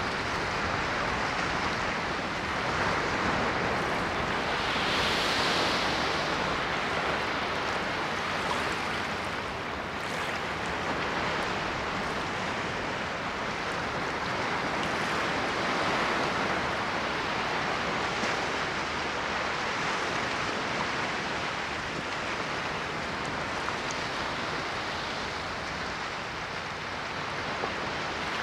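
Ocean waves washing onto a shore, a steady hiss of surf that swells and eases, with a brighter crest about five seconds in.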